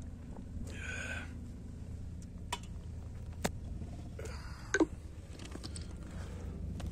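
A steady low rumble, with clothing rustling against the microphone twice and a few sharp clicks from the camera being handled, the loudest click a little after the middle.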